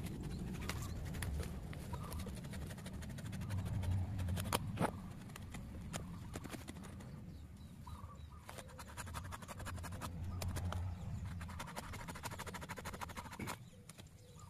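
Digging by hand with a small tool in wet soil around tree roots: scattered scrapes and sharp clicks, with quicker runs of clicks about halfway and near the end, over a low rumble.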